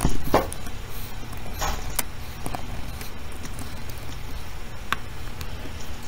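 Scattered small clicks and taps of a screwdriver working small screws back into a device's cover plate, over a steady low hum.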